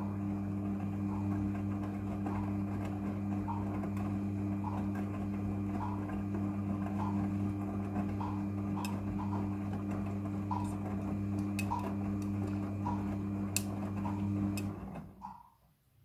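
Front-loading washing machine's drum motor humming steadily as the drum tumbles the wash, with faint regular ticks about once a second and a few sharp clicks. The hum cuts off about fifteen seconds in as the drum stops.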